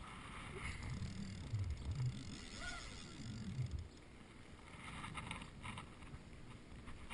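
Water lapping around a float tube, with low rumbling handling noise on the body-worn camera for the first few seconds. Brief rustling and clicking about five seconds in, as a glove on a lanyard is handled at the rod.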